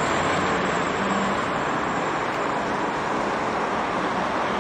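Steady highway traffic noise: tyres and engines of passing cars and trucks on a multi-lane road, with a heavy truck's engine tone heard in the first second or so.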